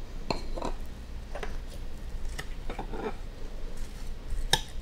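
Metal spoon stirring sliced apples in a glass mixing bowl: scattered clinks and scrapes against the glass, with one sharp clink near the end the loudest.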